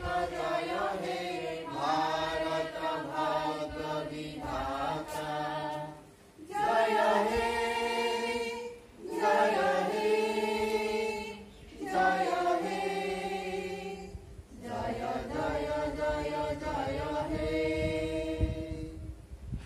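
A small group of voices singing together in unison, phrase by phrase with short breaks for breath; the singing ends near the end.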